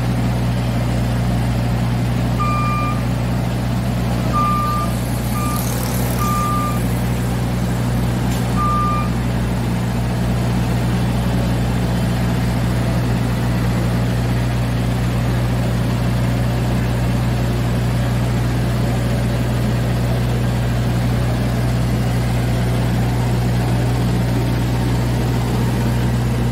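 Roots RD 180 ride-on power sweeper running steadily with its hopper raised in high-dump position. About five short, single-pitch warning beeps sound between about two and nine seconds in, and there is a brief rushing noise about six seconds in.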